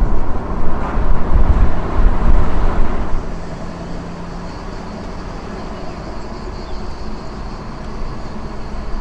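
Jaguar F-Type Project 7's supercharged V8 and road noise heard from inside the cabin while driving, loud at first and dropping sharply about three seconds in to a quieter, steady rumble.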